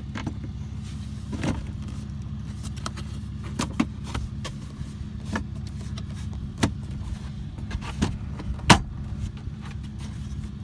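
Plastic glove box and trim clips being pushed into a car dashboard: scattered clicks and knocks, the sharpest about nine seconds in, over a steady low hum.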